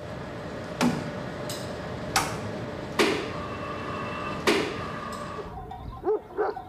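Four sharp clicks over about four seconds as lit push-button switches on a mass spectrometer's vacuum valve controller are pressed, over the steady hum of the lab equipment. The hum stops about five and a half seconds in, and a dog barks twice near the end.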